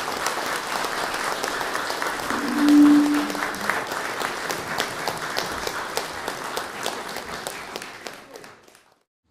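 Audience applauding, a dense patter of claps that dies away near the end. A brief steady low tone sounds about three seconds in.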